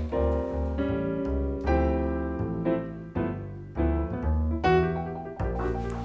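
Background piano music: chords and notes struck every half second or so, each fading out.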